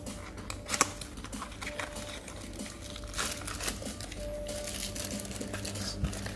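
Cardboard phone-box packaging being handled, with taps and clicks and a sharp click about a second in, then crinkling of a plastic-wrapped accessory being lifted out. Faint background music plays under it.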